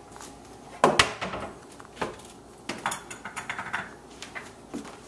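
A blender jar and a drinking glass being handled on a kitchen counter: a series of knocks and clinks, the loudest about a second in and a quick cluster of them past the middle.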